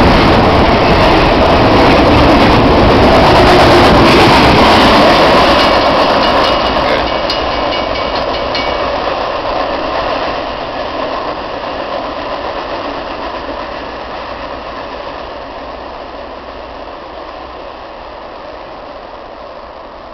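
Double-stack intermodal freight cars rolling past at speed, a loud steady rush of steel wheels on rail. About five seconds in the end of the train goes by and the noise fades steadily as it moves away, with a faint high ringing for a few seconds after the last car passes.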